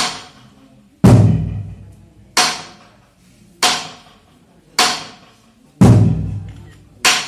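Slow, even percussion beat for a line dance: sharp, ringing strikes about every second and a quarter, with a deep drum stroke falling on every fourth beat, about a second in and again near six seconds.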